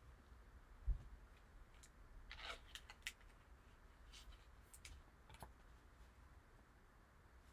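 Quiet handling of trading cards on a table: a low bump about a second in, then a brief soft rustle and a few light clicks.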